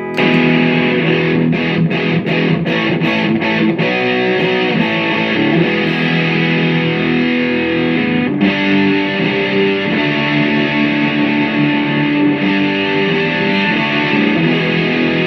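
Electric guitar played through a Washburn Solo Distortionist pedal for a heavily distorted, high-gain tone: a B.C. Rich Mockingbird with FU-Tone pickups into a solid-state Marshall Lead 100 MOSFET amp and a Celestion-loaded 1x12 cab. A run of quick chugged strokes in the first few seconds, then sustained ringing chords and notes.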